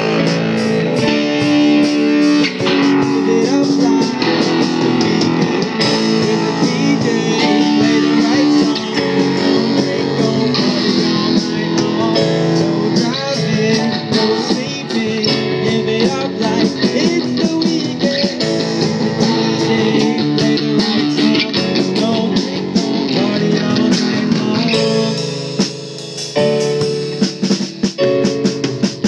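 Amplified rock band playing live, electric guitar over a drum kit, in a stretch with no sung words. The music drops back and thins out about 25 seconds in.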